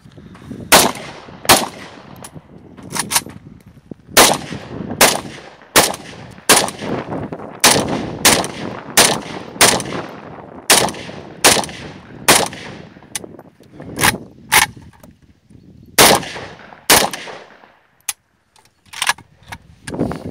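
Sako RK 95 rifle in 7.62×39 mm fired shot by shot in a fast string of about twenty loud shots, roughly one a second, with a brief pause near the end before a last few shots.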